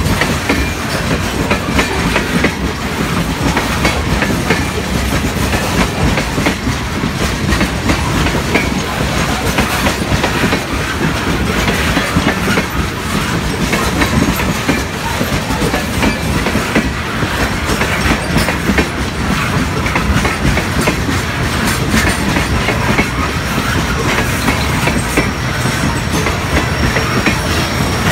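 Open-top hopper cars of a gravel train rolling steadily past at close range, their steel wheels clattering over the rail joints in a continuous loud rumble.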